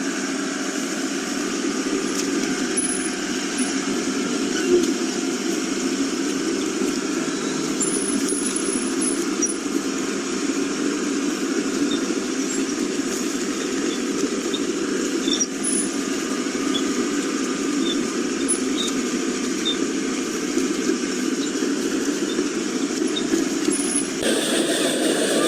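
Steady truck-engine running sound with a few faint small ticks; the sound changes abruptly near the end.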